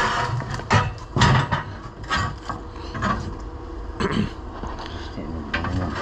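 Steel plate being shifted and set into place: irregular knocks and scrapes of metal on metal.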